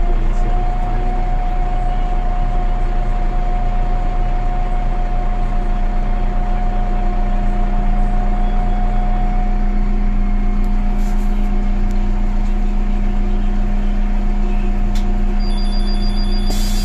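Karosa B961E articulated city bus's diesel engine idling steadily with a constant whine, heard inside the passenger cabin while standing at a stop. Near the end a high repeated beep sounds and a pneumatic hiss starts as the doors begin to close.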